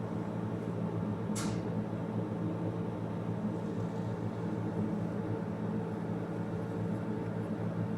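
Steady low mechanical hum, like a fan or appliance motor running, with one brief high swish about a second and a half in.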